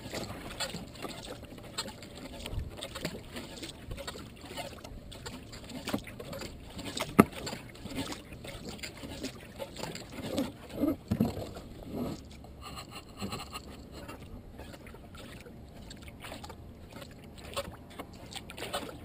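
Kayak being paddled across a river: paddle blades dipping and splashing with each stroke and water lapping against the hull. There is a single sharp knock about seven seconds in.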